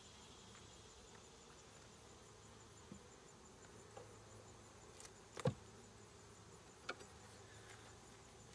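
Honey bees buzzing faintly around an open hive, with a few sharp knocks of the wooden frame against the hive box as a frame is lifted out. The loudest knock comes a little past halfway.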